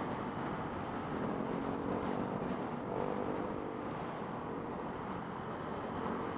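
Motorcycle engine running at road speed with wind rushing over the microphone; the engine note shifts slightly in pitch midway.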